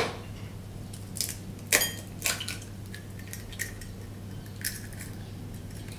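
An egg being cracked on a ceramic bowl and split open: a few light clicks and taps of shell against the bowl, one with a short ringing clink.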